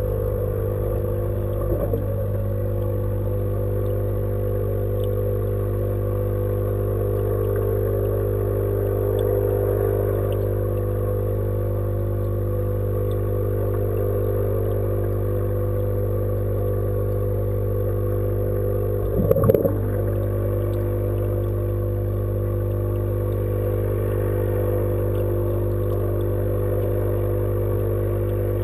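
Steady mechanical hum made of several steady tones, heard through the water of a fish tank. A short knock sounds about two seconds in and a louder clattering knock about twenty seconds in.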